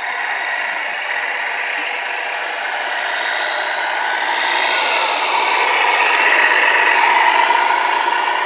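Two 1:14-scale radio-controlled trucks, a Tamiya Scania R470 and a Premacon Mercedes-Benz SK 3544 8x8, driving: a steady whine of their electric drive motors and gearing, its pitch drifting slowly. It grows louder through the middle of the run.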